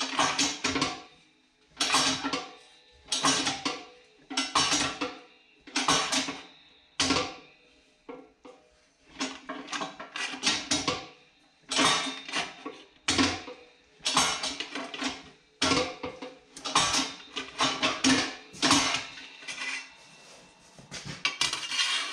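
Pullmax reciprocating machine's dies hammering a steel sheet-metal patch panel in more than a dozen short bursts of rapid blows, the panel ringing with each pass. The panel edge is being shrunk.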